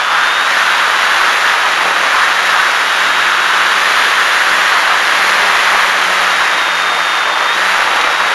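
Radio-controlled model airplane in flight, heard from a camera on its nose: a steady rush of wind and propeller noise with a faint high motor whine and a low hum, as the plane comes in low on its landing approach.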